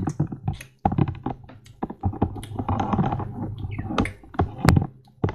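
Irregular clicks, taps and rustles of dolls being handled and pressed together right at the microphone.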